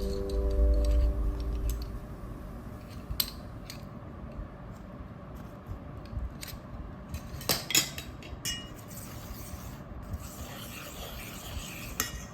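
Scattered clicks and short scrapes of a utensil against a bowl as sourdough pancake batter is mixed. Background music fades out in the first two seconds.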